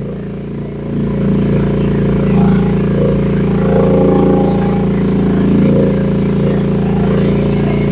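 Rippa R10 mini excavator's gasoline engine running steadily while the hydraulics work the boom and bucket. The engine note gets louder about a second in as the hydraulics take load, then varies a little.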